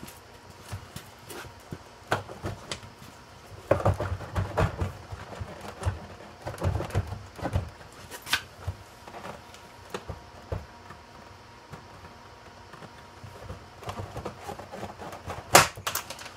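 Plastic interior door panel of a 1998 Buick Park Avenue being worked up and off the door: scattered knocks, clicks and rattles, busiest a few seconds in, with one sharp loud click near the end.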